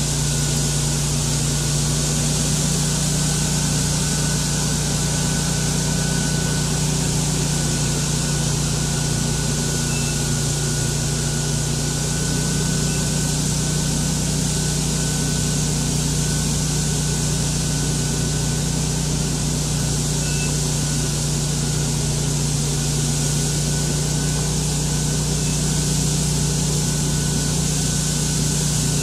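Buffalo Turbine Cyclone industrial leaf blower running steadily: a constant engine hum under a loud rush of air from its blower tube as it clears leaves from a ditch.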